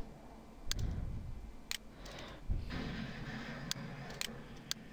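Computer mouse button clicking, about five or six separate sharp clicks spread over several seconds, over faint low room noise.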